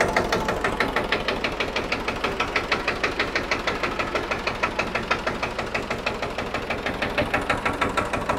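1939 Deutz F1M414 tractor's water-cooled single-cylinder diesel engine idling, with a steady, even chug of several firing strokes a second that sounds like it would run all day.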